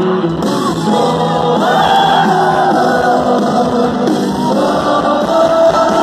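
Live sertanejo band playing through a large concert sound system, with the crowd singing and shouting along.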